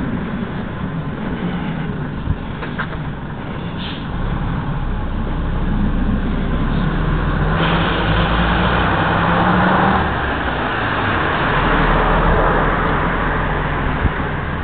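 Road traffic: cars going by on a street. A louder vehicle passes a little past halfway, its engine hum and tyre noise rising for a couple of seconds.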